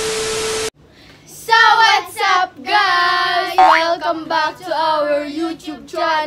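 A short burst of TV static with a steady beep, cutting off suddenly, then a group of girls calling out together in a drawn-out, sing-song chorus.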